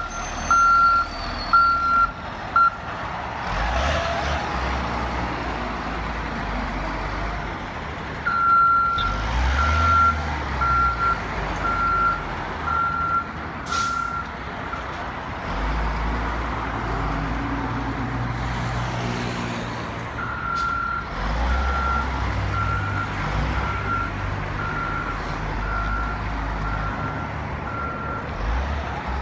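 A heavy construction machine's reversing alarm beeping steadily in three spells, over the low rumble of diesel engines running.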